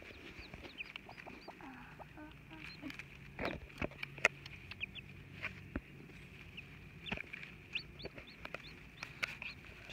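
Newly hatched Silkie chicks peeping in many short, high chirps, with the brooding hen giving a few low, soft clucks.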